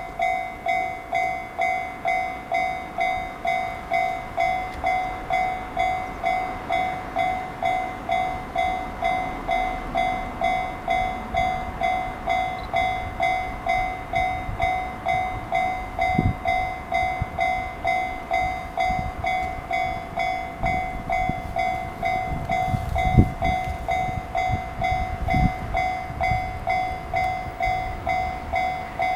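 Railway level crossing warning bell ringing steadily, a little under two dings a second, signalling an approaching train. A few low wind thumps hit the microphone, the strongest about two-thirds of the way through.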